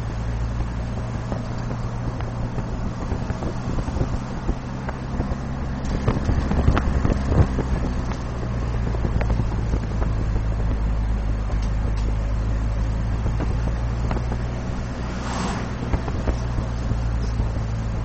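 Steady road and engine noise of a moving car, a constant low rumble with some wind, heard from inside the car. A cluster of knocks and rattles comes around six to eight seconds in, and a brief higher noise about fifteen seconds in.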